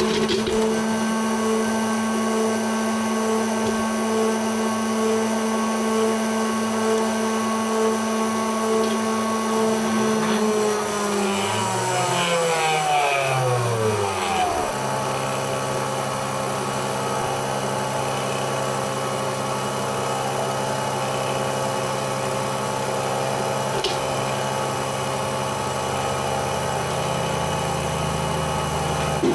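Homemade CNC engraving machine running with a steady motor whine; about eleven seconds in, the pitch slides down over a few seconds and settles into a different, lower steady hum.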